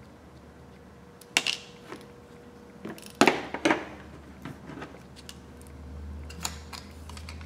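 Small hand tools and phone parts clicking and knocking against a work mat and a plastic tray while a phone is taken apart: three sharper knocks in the first few seconds, then lighter taps near the end.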